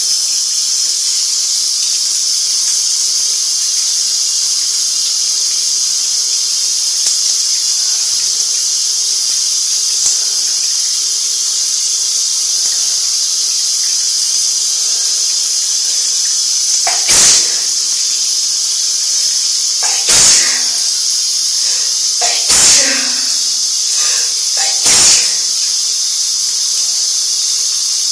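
Shower spray hissing steadily, with four loud sneezes from a person with a cold, coming about every two and a half to three seconds from about two-thirds of the way in.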